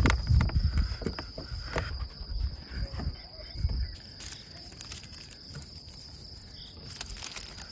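Hands pressing dough on a wooden board and folding it in squares of baking paper: soft thumps and paper rustles, busiest in the first few seconds. A steady high insect trill runs underneath.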